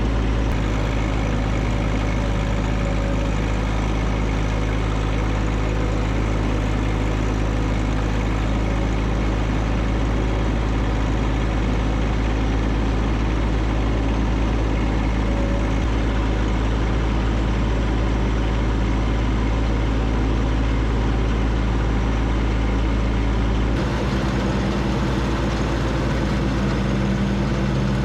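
John Deere 1025R compact tractor's three-cylinder diesel engine running steadily. Its note shifts near the end.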